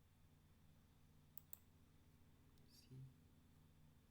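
Two quick computer mouse clicks about a second and a half in, over a faint steady low hum.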